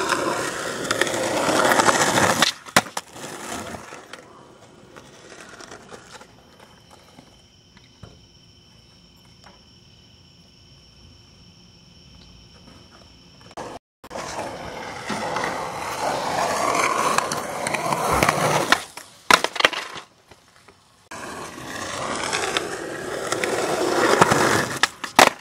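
Skateboard wheels rolling over rough concrete, growing louder as the board nears, in three separate runs with a quiet gap between the first and second. Sharp clacks of the board land near the end of each run.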